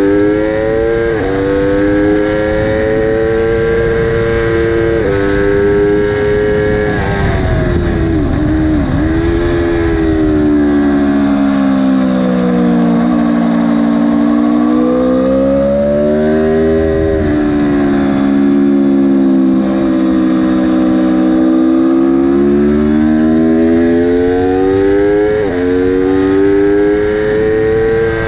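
Aprilia sport bike engine revving hard through the gears, its pitch climbing and dropping sharply at each upshift. Around the middle it falls away as the bike brakes and downshifts for a slow corner, then climbs again through more upshifts. Wind rush runs under the engine note.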